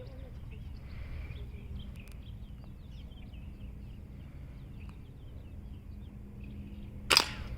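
A steady low outdoor rumble with scattered bird chirps, then a single sharp shot from a spring-piston air rifle about seven seconds in.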